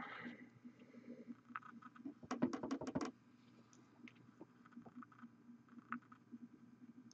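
Small handling noises while painting a miniature: a quick run of about six sharp clicks a little over two seconds in, with faint scattered ticks and rustles over a steady low hum.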